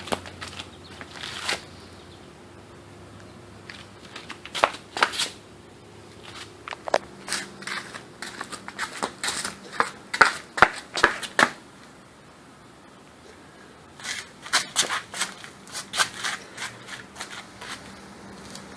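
Irregular sharp clicks and light knocks in three bursts, over a faint steady hum.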